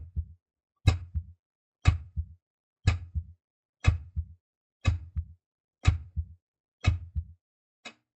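Rhythmic sound effect over the opening titles: a sharp click followed by two or three low thuds, repeating about once a second. The last beat near the end is only a faint click.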